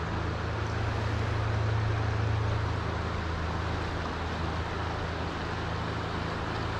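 A distant engine drones low and steady, swelling about two seconds in and then easing off, over the rushing wash of a flowing river.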